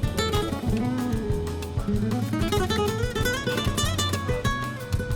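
Background music: acoustic guitar picking a melody over a steady bass line.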